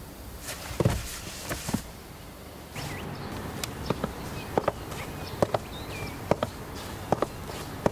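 Footsteps: a few hard heel clicks, then a man's hard-soled shoes stepping on a wooden deck at an even walking pace, about one step every 0.8 seconds. Birds chirp faintly in the background.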